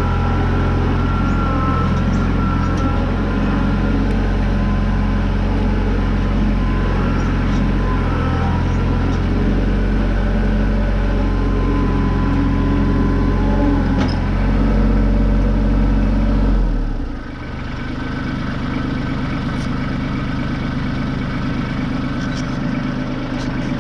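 Tractor engine running steadily at working speed, then throttled back partway through, dropping in pitch to a lower, quieter idle.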